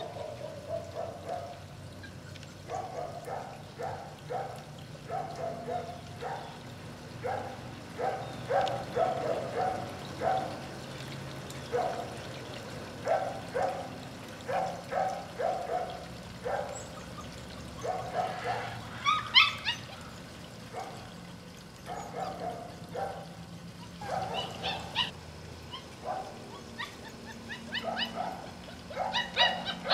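Month-old Šarplaninac puppies yipping in quick runs of short calls, with a few higher-pitched whines about two-thirds of the way in and again near the end. A low steady hum runs underneath.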